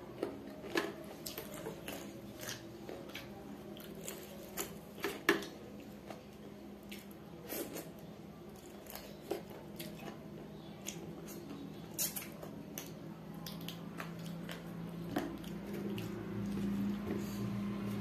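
Close-miked eating sounds: wet mouth clicks and smacks from chewing, with the soft squish of rice and curry gravy mixed by hand on a steel plate. The clicks come scattered and irregular over a low steady hum, and a low murmur grows near the end.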